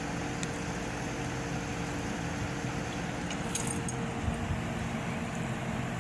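Newly installed Midea 18000 btu DC inverter mini-split air conditioner running: a steady hum with a few constant low tones over the whoosh of its fan. A few faint light clicks come about half a second and three and a half seconds in.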